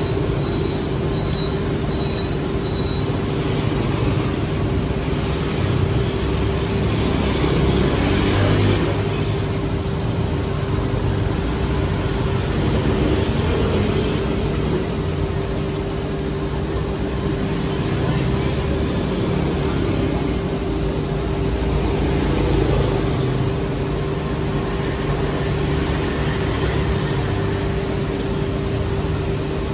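Street traffic noise with a steady mechanical hum underneath, even and unbroken throughout.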